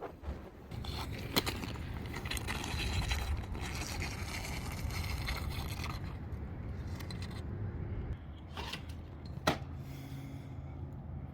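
Rope and its roof/rope protectors scraping as they are dragged down over a sloped roof, a steady scraping for several seconds with a sharp knock about a second in and another near the end.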